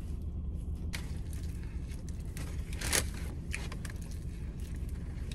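Someone eating a cheesesteak sub sandwich: chewing and handling the sandwich, with a few short sharp sounds, the loudest about three seconds in, over a low steady hum.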